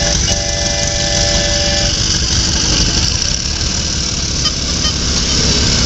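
Small engine of a riding garden tractor running steadily as it pulls a barrel-train ride of children. A held pitched tone sounds for about a second and a half near the start.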